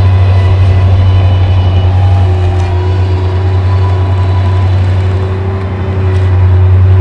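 Engine running steadily and loud, with a deep drone and faint steady whine tones above it; the level dips briefly about five to six seconds in, then comes back up.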